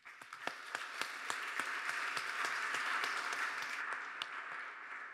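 Audience applauding, starting at once, swelling, then dying away near the end.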